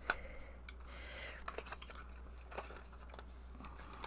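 Faint handling of a small packaged stationery item: a few scattered light clicks and soft crinkling of packaging as it is unwrapped.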